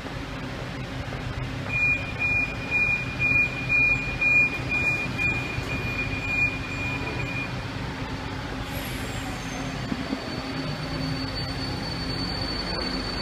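Metro train's door-closing warning: a high beep repeating about twice a second for some five seconds, then held as one tone, over the steady hum of the standing train and station.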